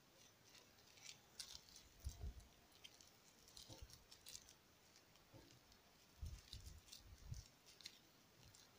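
Faint, scattered crinkles and rustles of plastic grafting strip being handled and wrapped to bind a bridge graft on the tree trunk. A few soft low bumps come about two seconds in and again around six to seven seconds.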